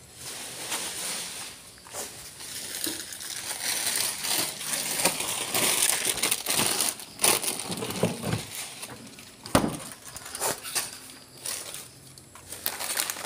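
Rustling and crinkling close to the microphone, with scattered sharp clicks, loudest about halfway through.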